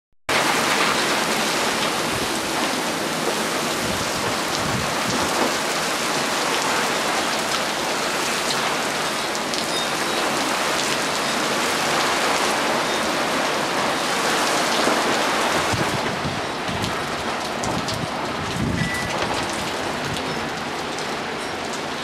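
Heavy rain pouring steadily onto pavement in a thunderstorm: a dense, loud hiss that eases slightly about two-thirds of the way through.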